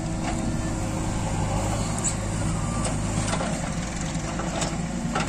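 Diesel engines running steadily: a JCB backhoe loader working its hydraulic arm to swing a bucket of soil over and dump it into a tractor trolley, with a Swaraj 744 FE tractor's three-cylinder diesel idling beside it. Scattered short knocks and clatter through it, and a sharper knock at the very end.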